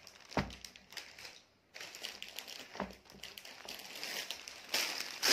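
Rustling and crinkling of folded cotton suit fabric as it is lifted, laid down and smoothed by hand, with two soft thumps, about half a second in and near three seconds, and a louder rustle near the end.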